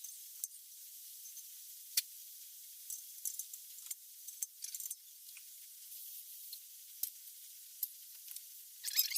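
Valve lapping on a BMW M50 cylinder head: a gritty, scratchy scraping of the valve face turning against its seat in abrasive lapping compound, in irregular bursts with sharp clicks over a faint steady hiss, loudest near the end.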